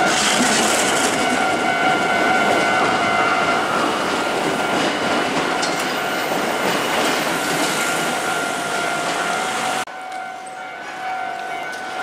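Electric train running past, a dense rush of wheel and running noise, under a steady ringing tone typical of a Japanese level-crossing warning bell. The train noise drops abruptly about ten seconds in, leaving fainter train sound and the tone.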